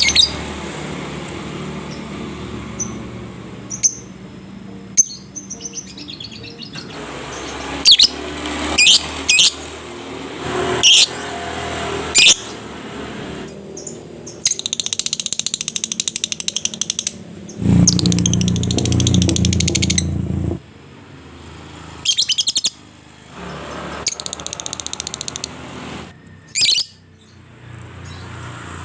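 Lovebird calling: sharp, shrill chirps and stretches of rapid chattering trill ('ngekek'). A low rumble rises under the trill about two-thirds through.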